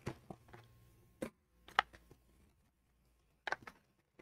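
Cardboard box being handled and opened by hand: scattered short taps and rustles, the sharpest about two seconds in, with a small cluster of clicks near the end.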